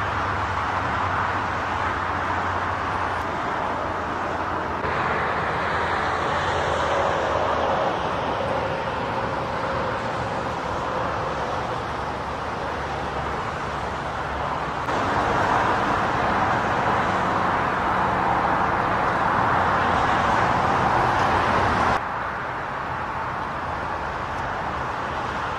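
Steady rush of road traffic ambience. Its level and character change abruptly three times, about five, fifteen and twenty-two seconds in.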